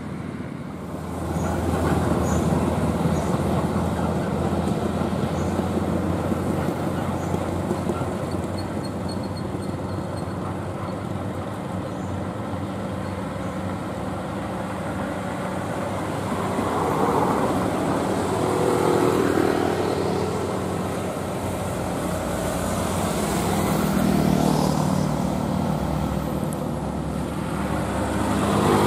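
Diesel engines of heavy dump trucks working up a road incline, a continuous rumble with traffic noise. A loaded Mercedes-Benz dump truck's engine grows louder as it approaches and is loudest at the end.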